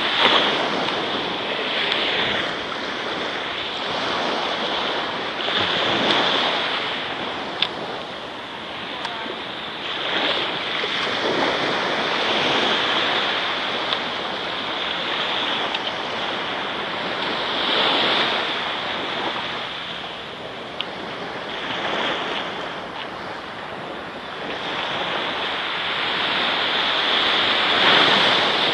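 Small waves breaking and washing up the sand at the shoreline, rising and falling in surges every few seconds.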